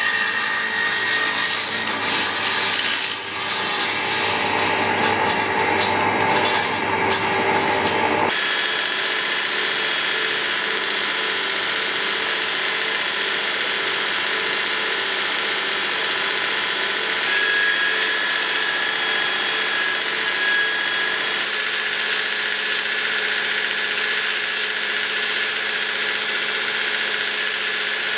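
A table saw cutting a thin strip of wood. About eight seconds in it gives way abruptly to a belt grinder running steadily while a small wooden handle piece is shaped on its belt.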